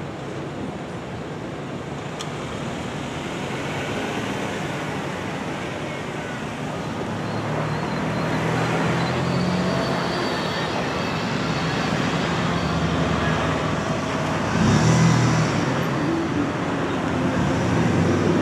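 Road traffic: cars driving past over the crossing, engine and tyre noise growing louder as they come close, loudest about fifteen seconds in.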